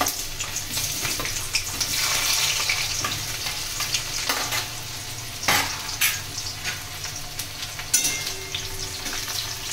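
Sliced onions sizzling in hot oil in a metal kadai as they are tipped in and stirred. The sizzle swells about two seconds in, and a few sharp knocks of the spoon and metal spatula against pan and plate cut through it.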